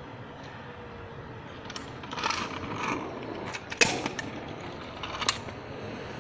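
Metal kick scooter handled close by: a scraping rattle, then a few sharp metallic clacks, the loudest about four seconds in.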